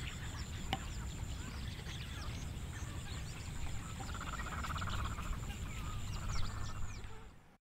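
Outdoor rural ambience: small birds chirping repeatedly, and a pulsed croaking call for about a second and a half midway, over a low steady rumble. The sound cuts off abruptly just before the end.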